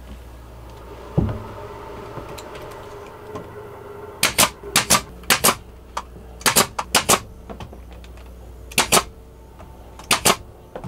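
Pneumatic DeWalt pin nailer driving small headless 3/4-inch pins into wooden trim: sharp snapping shots in quick pairs and threes, about ten in all, starting about four seconds in. A single dull knock comes about a second in, over a faint steady hum.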